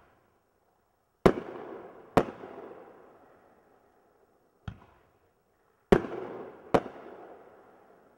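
Aerial fireworks bursting in the sky: four loud bangs in two pairs, each dying away over a second or two, with a softer pop shortly before the second pair.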